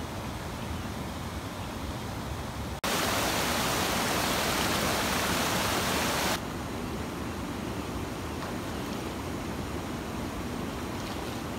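River water rushing over shallow stony riffles, a steady hiss. About three seconds in it jumps suddenly to a louder, brighter rush of white water churning below a concrete weir, then drops back to the quieter flow about three and a half seconds later.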